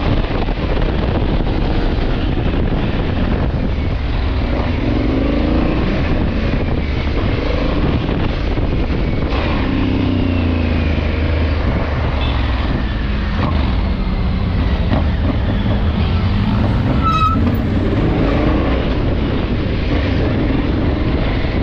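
Motorcycle engine running and revving up and down while riding in traffic, with wind rushing over the helmet-mounted microphone and passing traffic. A brief high-pitched chirp about three-quarters of the way through.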